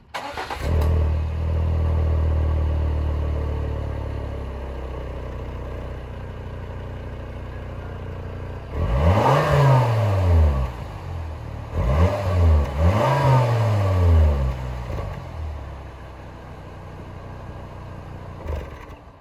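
Exhaust of a 2016 Volvo XC70's 2.5-litre turbocharged five-cylinder engine at the tailpipes. It runs at a raised idle that gradually settles, is revved twice, about nine and twelve seconds in, the second rev with a double blip, then drops back to idle.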